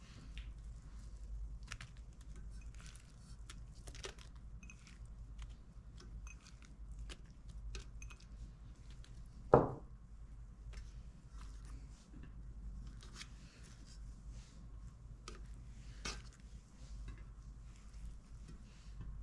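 Hands laying pieces of vegetables and meat over rolled dolma in a large metal pot: soft rustles, squishes and small clicks of food and fingers against the pot. One sharp knock about halfway through.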